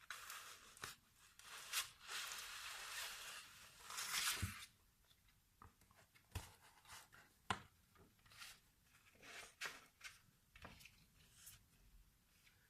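Close-miked ASMR handling sounds: a rubbing, rustling stretch of about four and a half seconds, then scattered soft crackles and clicks.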